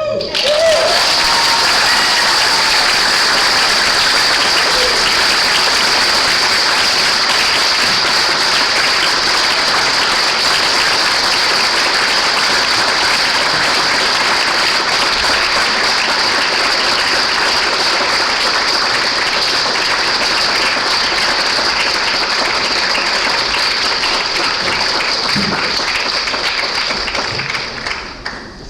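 A congregation applauding loudly and steadily for nearly half a minute, dying away near the end.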